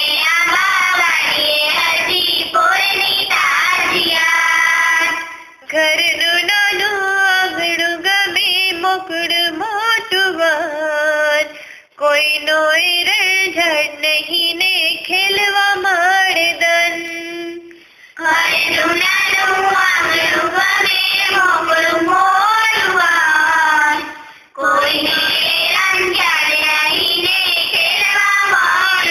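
A female voice singing a Gujarati poem in long phrases of about six seconds each, with short breaks between them.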